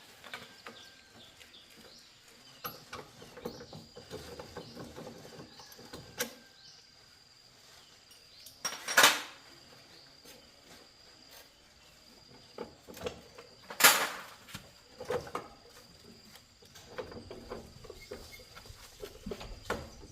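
Metal parts and tools being handled, with scattered small clicks and knocks, and two short, loud hissing bursts about five seconds apart.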